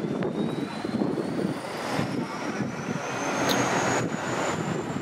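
Road traffic on a city street, a steady rumble, with a thin high whine that rises slowly in pitch throughout.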